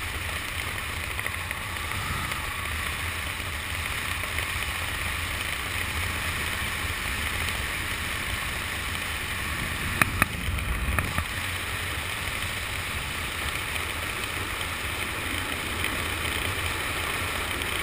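Steady wind rushing over the camera's microphone during a descent under an open parachute canopy, with a low rumble. A few sharp clicks about ten seconds in.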